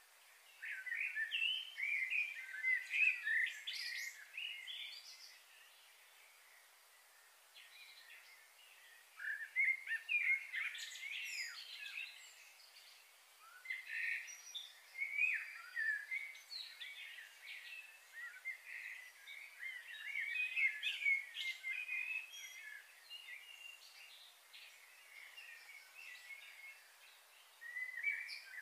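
Birds chirping and calling in several bouts of quick, high chirps, with quieter gaps between the bouts.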